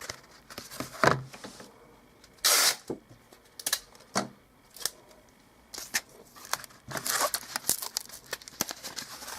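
Cardboard and packing tape being handled: scattered clicks, crinkles and rustles, with a short ripping sound, like tape pulled or torn, about two and a half seconds in.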